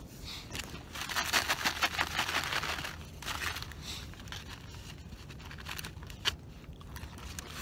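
Aluminium foil crinkling and tearing as a charred foil packet is peeled open by hand. It gives a dense spell of crackling for about two seconds, then softer rustles and one sharp click near the end.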